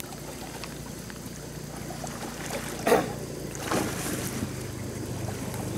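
Outdoor ambience at a fish pond: a steady low hum and an even rushing noise, with a brief distant voice calling out about three seconds in.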